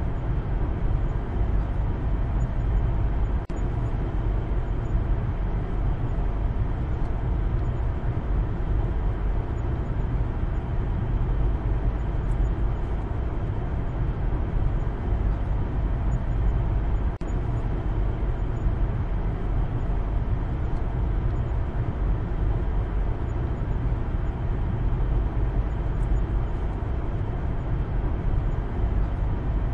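Steady driving noise inside a Maruti Suzuki Baleno's cabin: a constant low rumble of engine and road, with an even hiss above it.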